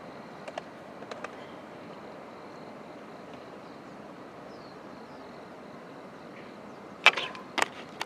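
Steady outdoor background noise with a faint high steady tone and a few light ticks early on, then two sharp, loud noises about half a second apart near the end.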